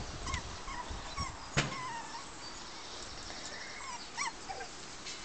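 Chinese crested puppies whimpering and yipping: a string of about six short, high whines that bend up and down, with a sharp click about a second and a half in.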